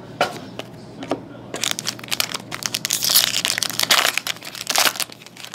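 Foil wrapper of a trading card pack crinkling and tearing as it is ripped open by hand, starting about a second and a half in, after a couple of light clicks.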